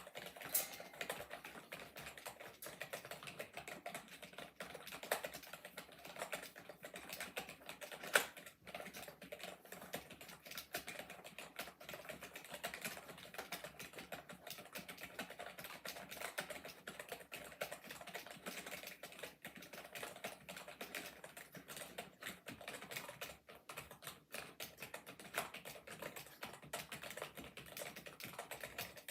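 Continuous fast typing on a budget gaming computer keyboard: a dense, irregular run of key clicks, with one louder key strike about eight seconds in.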